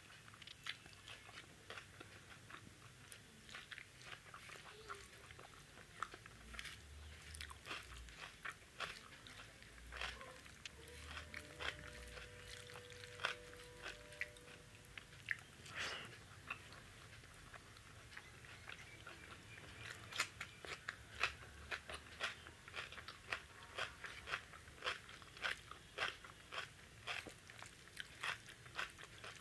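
Close-up chewing and lip-smacking of a person eating rice with dal and vegetable curry: many short, irregular mouth clicks, coming thicker in the last third.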